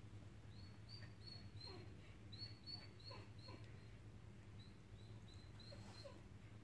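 A fluffy white dog whimpering faintly on the other side of a glass door: a string of about a dozen short, high-pitched whines over a low steady hum.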